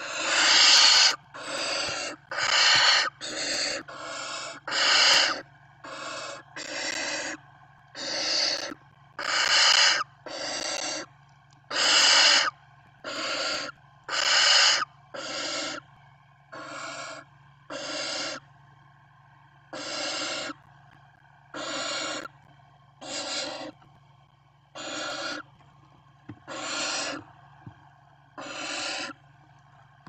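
Barn owl chicks giving hoarse hissing begging calls, one after another about once a second. The calls are quickest and loudest in the first few seconds, over a steady low hum.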